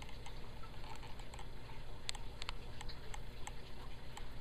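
Scattered light clicks and ticks, a few a second and thickest in the middle, over a steady low hum.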